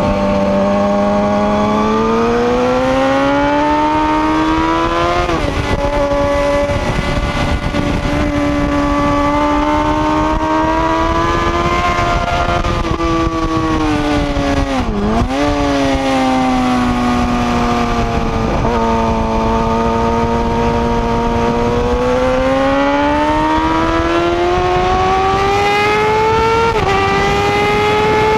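Suzuki sport motorcycle engine under hard acceleration on track, with wind rushing over the microphone. The engine note climbs through the revs and drops at an upshift about five seconds in, falls away with a quick dip about halfway as the bike slows for a corner, then climbs again with another upshift near the end.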